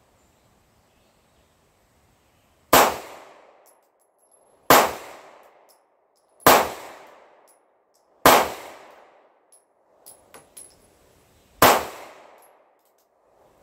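Five pistol shots fired strong-hand only in slow fire, roughly two seconds apart with a longer pause before the last. Each crack is followed by a short echo from the covered shooting shelter.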